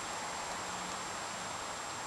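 Steady outdoor background hiss with a thin, high steady tone running through it and a faint low hum for about a second in the middle; no distinct chewing or other animal sound stands out.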